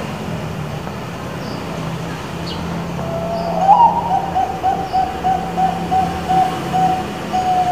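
Zebra dove (perkutut bangkok) cooing. About three seconds in, a low note rises to a brief higher one, then runs into a string of quick, even coos, about four a second. It sounds over a steady low rumble and faint high chirps.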